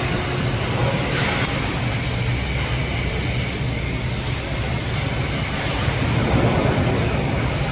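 Arc welding on a tube: the welding arc gives a steady hiss over a low electrical hum, with a few faint ticks about a second in.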